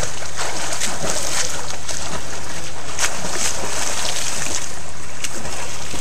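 Water splashing and sloshing as someone swims, with many short sharp splashes over a steady rush of water.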